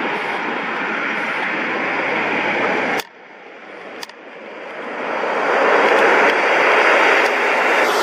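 Twin-turboprop Dornier 228 landing and rolling out on a highway strip: a loud, steady rush of engine and propeller noise. It cuts off abruptly about three seconds in, then builds again and is loudest near the end.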